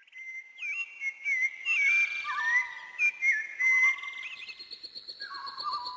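Several whistles blown over one another, their tones sliding and wavering up and down, with patches of rapid trilling. A steady, high trilling whistle comes in about four and a half seconds in.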